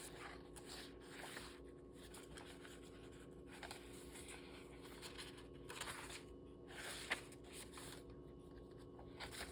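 Faint rustling and brushing of paper pages being turned and handled in a handmade junk journal: a few soft scattered rustles over a low steady hum.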